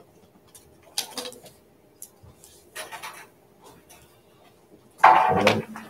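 Scattered small knocks and rustles of a classroom at work, with one brief louder sound about five seconds in.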